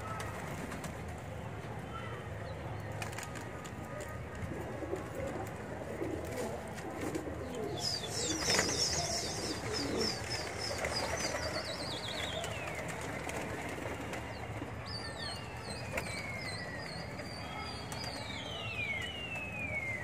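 Flock of domestic pigeons cooing. High whistled calls glide down in pitch from about eight seconds in and again over the last five seconds.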